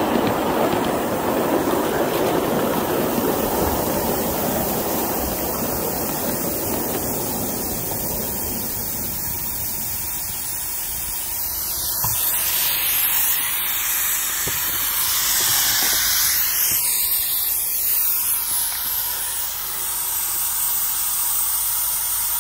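A 5-inch gauge live steam locomotive running along the track, its running noise dying away over the first half as it slows. About halfway through, a steady hiss of escaping steam takes over while the locomotive stands.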